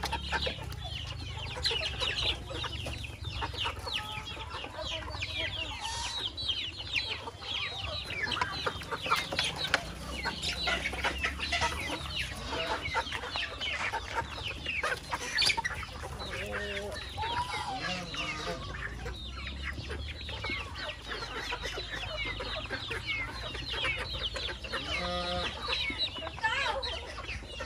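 A flock of chickens clucking and chirping, with many short calls overlapping without a break and a few longer calls standing out. A steady low rumble runs underneath.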